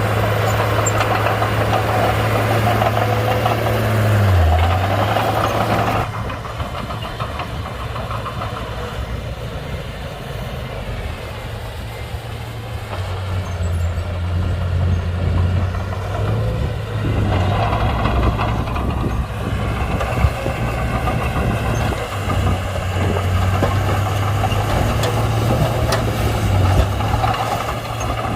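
Komatsu D31-P bulldozer's diesel engine running under load, with a brief dip in pitch about four seconds in. The sound drops off suddenly at about six seconds, then the engine comes up louder again from about thirteen seconds.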